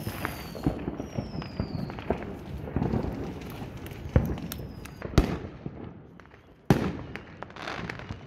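Consumer fireworks going off all around: a steady crackle of pops and small bangs, with sharper bangs about four, five and nearly seven seconds in. Faint falling whistles can be heard about a second in and again around four seconds.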